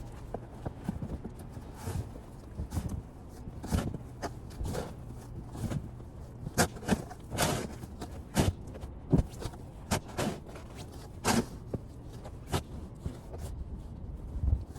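Footsteps in snow: irregular steps, several a second at times, with a few louder thuds among them.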